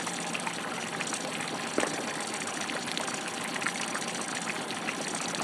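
Steady rush of flowing flood-swollen river water, with scattered small ticks and one sharper knock about two seconds in.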